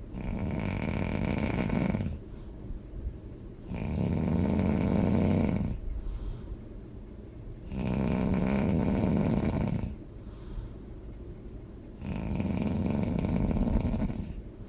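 A person snoring loudly in a slow, even rhythm: four long snores of about two seconds each, roughly one every four seconds, with quieter breaths between.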